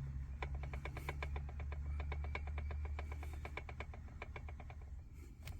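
Steering column of a 2024 Hyundai Grand i10 clicking in a fast, even run of about nine clicks a second as the steering is turned, over a low hum. The clicks stop about four and a half seconds in. They are the sign of wear and play inside the steering column.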